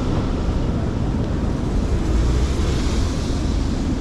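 Steady, even roar of wet city street traffic, with a deep rumble of wind on the microphone.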